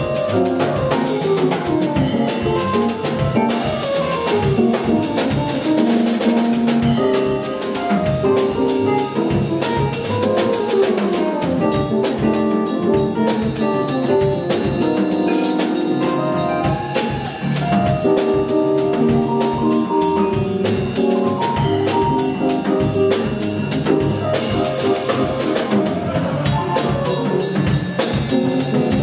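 Small live jazz combo playing: drum kit with constant cymbal strokes under upright bass and keyboard lines.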